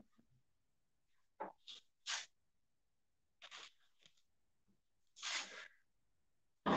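A man's hard, breathy exhalations while straining through resistance-band leg presses: a series of short puffs at uneven intervals, with a longer push of breath about five seconds in.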